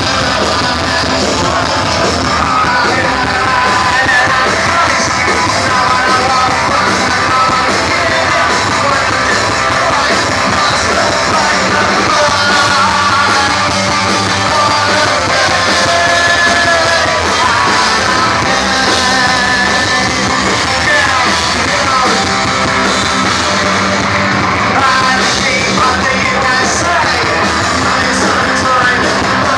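A live punk rock band playing loudly, with a singer shouting and singing the vocals.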